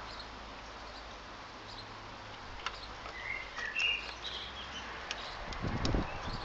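A plastic diesel fuel-filter cover being handled and seated on its housing: a few light clicks and low knocks that build near the end. Faint bird chirps over a steady outdoor background hiss.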